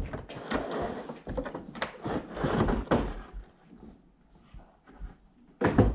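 Packaging being handled during an unboxing: cardboard and plastic rustling with light knocks as the LED ring light's parts are taken out of the box, busiest in the first half and quieter after. A short, loud sound comes just before the end.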